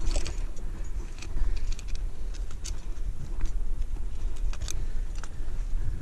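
Wind rumbling on an action camera's microphone, with scattered sharp clicks of climbing gear and hands against the rock.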